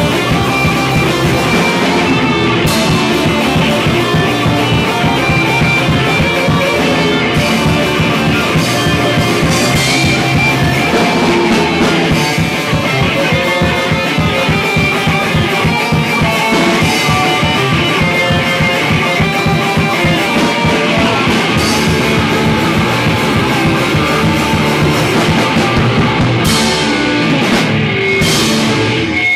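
Hardcore punk band playing loud: distorted electric guitars over drums.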